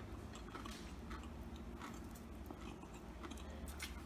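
Close-up eating sounds: scattered small crunches, clicks and mouth noises as crispy breaded chicken is chewed and picked apart by hand, over a low steady hum.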